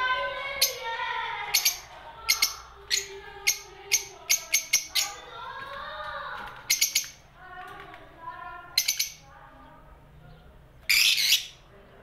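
Pet lovebirds in a cage chirping: a busy run of short, sharp, high chirps, with a louder, harsher burst about eleven seconds in.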